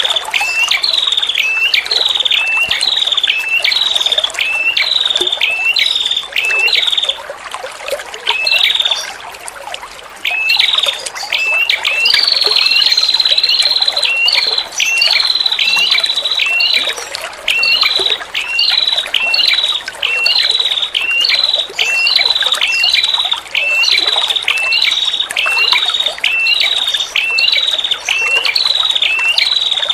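Female prenjak kepala merah, a small Indonesian warbler, calling over and over: a short chirp that rises and then drops in pitch, about one and a half a second, with a brief pause about nine seconds in. Trickling water runs underneath.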